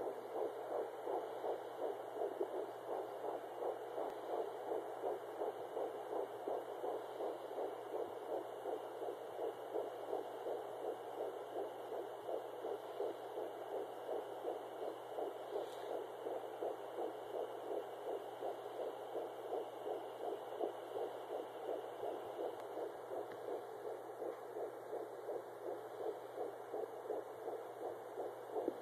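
Fetal heartbeat at 10 weeks 4 days heard through a Doppler monitor: a rapid, even whooshing pulse of about three beats a second, over a faint steady hum.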